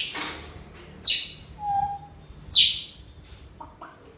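Congo African grey parrot whistling: three sharp, loud whistles that each fall quickly in pitch, about a second and a half apart, with a short, lower steady whistle between the second and third and a few brief soft calls near the end.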